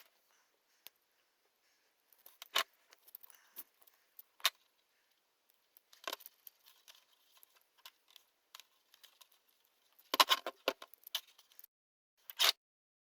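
Small 3D-printed plastic parts and fan wires being handled: scattered light clicks, taps and rustles, with a dense cluster of clatter about ten seconds in and one sharp rattle near the end.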